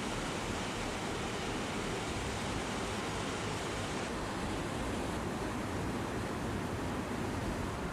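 Steady rushing noise of fast-flowing water, with no pauses or single impacts; the high hiss eases a little about four seconds in.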